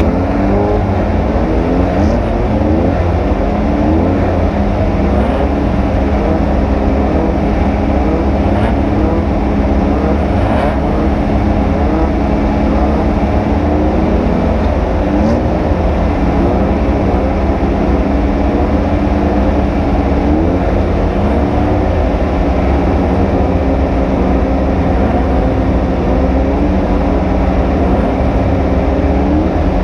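Off-road race vehicle's engine running hard, its pitch repeatedly climbing and then dropping back as it accelerates and changes gear, over a heavy, continuous low rumble.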